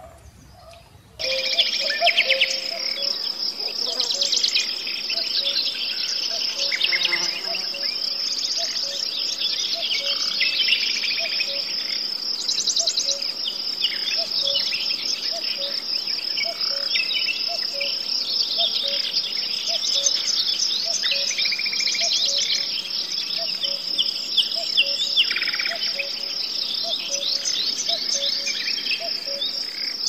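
Nature ambience: a steady, high insect chorus with many birds chirping over it, starting suddenly about a second in. A faint lower note repeats at a steady pace underneath.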